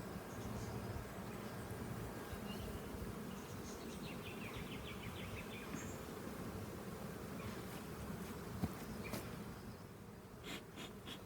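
Honeybees buzzing steadily around an opened hive, with a few light clicks, a sharper one late on and a cluster near the end.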